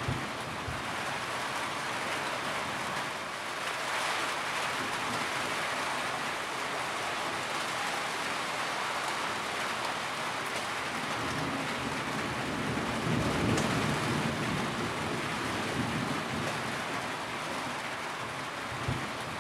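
Steady rain falling, with a low rumble of distant thunder swelling up about two-thirds of the way through and fading again.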